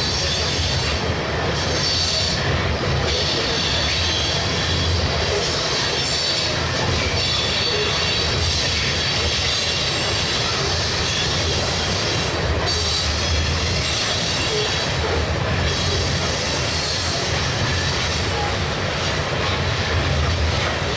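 A long freight train's cars rolling steadily past, a continuous rumble of steel wheels on rail with a high, steady squeal from the wheels.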